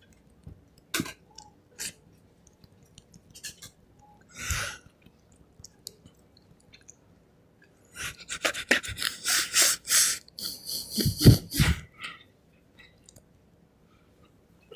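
Scattered clicks and small handling noises, then a dense run of rapid, irregular rustling and scraping lasting about four seconds, from about eight seconds in.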